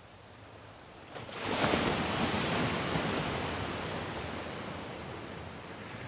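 A wave breaking on a sandy shore: a hiss of surf that swells suddenly about a second in and then slowly fades as the water washes up the beach.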